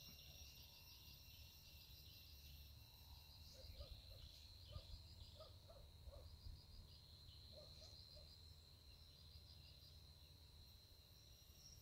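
Faint outdoor ambience: insects trilling steadily in high, rapidly pulsing tones, with short low chirps in small groups every second or two and a low rumble of wind on the microphone.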